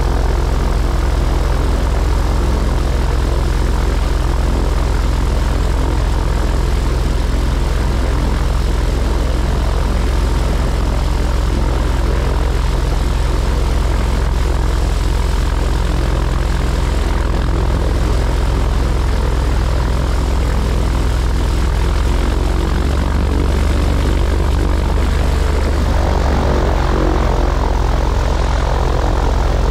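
Piper Pawnee tow plane's piston engine and propeller running steadily while taxiing after landing, the engine note shifting slightly over the last few seconds.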